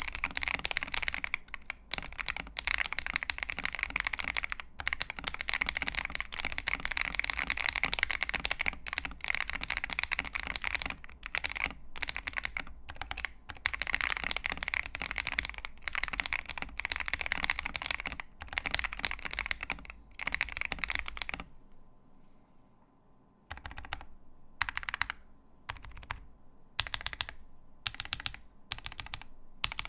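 Typing on a Feker IK75 Pro mechanical keyboard (plastic case, polycarbonate plate, added foam) with lubed Akko CS Lavender Purple tactile switches and PBT keycaps. Fast, continuous typing for about twenty seconds, a brief pause, then slower, separate keystrokes.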